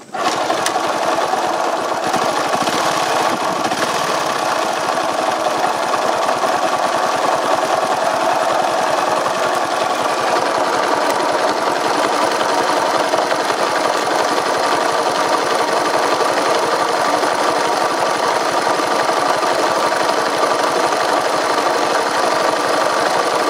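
Honda Chaly moped's four-stroke single-cylinder engine catching right at the start and then running steadily, with a rapid, even clattering tick throughout: the abnormal engine noise being shown.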